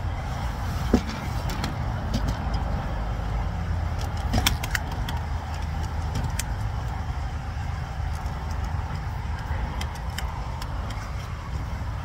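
Steady rumble of road traffic, with a few sharp knocks and the rustle of clothing close to the microphone, the loudest knocks about a second in and again about four and a half seconds in.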